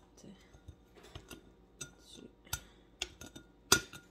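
A drinking glass and a small jar being handled on a countertop: irregular sharp clinks and knocks, some with a brief glassy ring, the loudest near the end.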